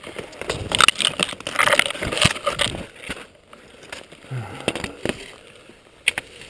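Skis scraping and crunching through snow for a couple of seconds, then a few separate sharp clicks and knocks of ski gear.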